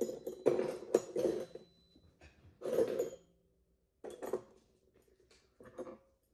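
Metal surgical hand instruments clinking and clattering in several short bunches, with a brief metallic ring.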